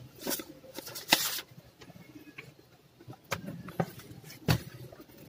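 Asus A46C laptop being shut and turned over on a table: a handful of soft plastic knocks and short rubbing scrapes, the loudest knock about four and a half seconds in.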